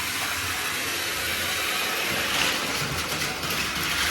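Battery-powered Plarail toy train running on plastic track, a steady whir from its small motor and wheels.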